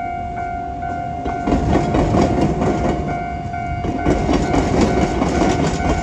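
Japanese level-crossing warning bell ringing in a steady repeating pattern while an Iyo Railway electric train rolls across. About a second and a half in, its wheels start to rumble and clatter over the diamond crossing with the tram tracks.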